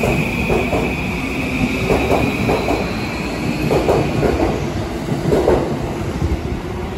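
Yamanote Line electric train running along the platform, its wheels clacking over rail joints in pairs about every second and a half, with a faint rising electric whine.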